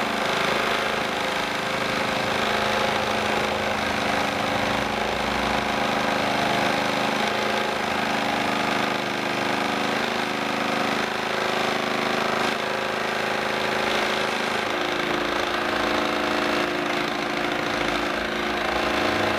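Homemade scroll saw, driven by a recycled electric fan motor, running steadily with a constant mechanical buzz as its reciprocating blade cuts a small block of wood.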